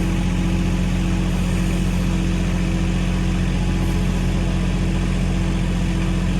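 Mahindra 1626 compact tractor's diesel engine running at a steady speed.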